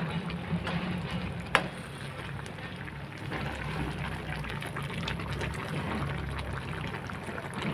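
Pinakbet simmering in a kawali, its broth bubbling, while a metal slotted spatula stirs the vegetables and clicks against the pan, with one sharper clink about a second and a half in.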